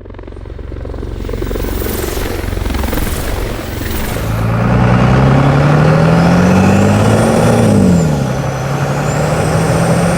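Diesel pickup truck accelerating: the engine note climbs steadily for a few seconds, drops sharply near the end as it shifts gear, then holds steady, with a high whistle rising and falling along with it.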